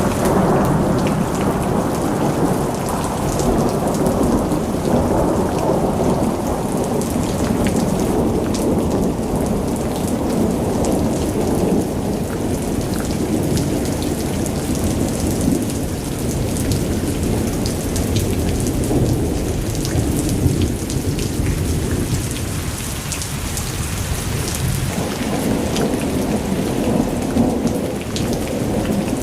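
Thunderstorm: steady rain falling, with thunder rumbling and rolling on underneath. The rumble dies down a little about three-quarters of the way through, then swells again.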